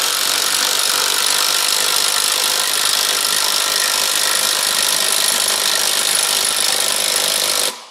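Milwaukee cordless drill running steadily under load as it turns the screw of a scissor stand, jacking a quad bike up off the ground. It runs at an even pitch and stops suddenly near the end.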